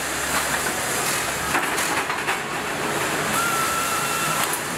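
Assembly-line factory noise, a steady mechanical hiss and clatter with a knock about a second and a half in. Near the end, a power nutrunner whines for about a second as it runs down a wheel's lug nuts.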